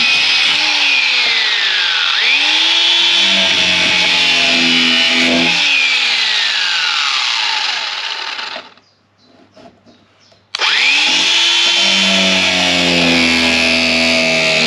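DeWalt angle grinder cutting a threaded paint-pole adapter into short pieces. Its whine falls in pitch twice and climbs back. It stops about eight and a half seconds in, then about two seconds later starts again, spinning up quickly, and runs on.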